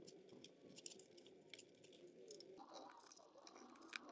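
Faint handling noises: cables rustling and small clicks as metal aviation connectors are fitted to a CNC control box, with one sharper click near the end.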